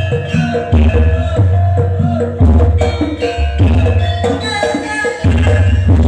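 Loud percussive music with heavy bass notes about every 0.7 s, played through a large sound system.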